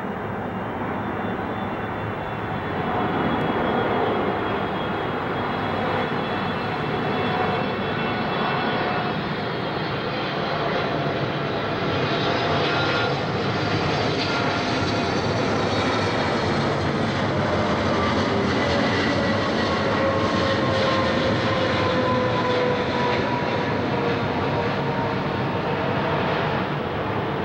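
Twin GE90 turbofans of a Boeing 777-300ER on landing approach with gear down, passing low overhead: a steady jet roar with whining tones that slowly fall in pitch as it goes over and away.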